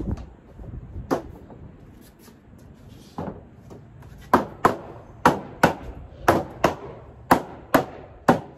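Mallet knocking the shelves of a molded plastic shelving unit down onto their posts. A few single knocks come first, then from about four seconds in the blows fall in quick pairs, about one pair a second.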